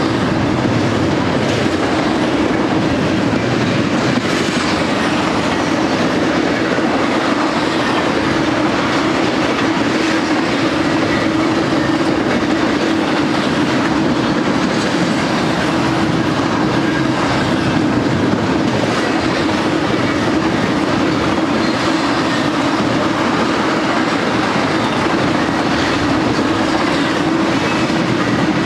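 Double-stack intermodal freight cars rolling past: a steady, loud rolling noise of steel wheels on the rails, with a constant low hum underneath.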